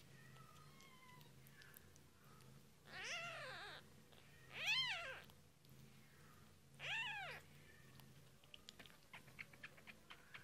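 A newborn British shorthair/longhair kitten mewing three times, each mew arching up and falling in pitch, the middle one the loudest. A run of faint small clicks follows near the end.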